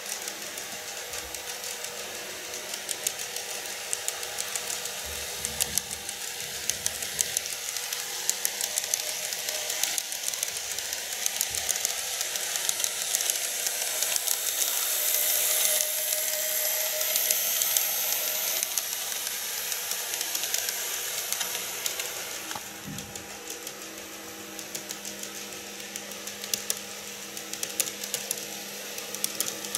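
KATO N-gauge 787 series model train running on its track: a steady whirring hiss of the small motor and wheels with rapid light clicking. It grows louder as the train passes close, about halfway through, then eases off as it runs away around the curve.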